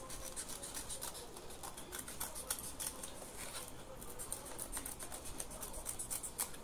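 Scissors snipping through micro-corrugated paper: a run of small, quick, irregular cuts following curved marks.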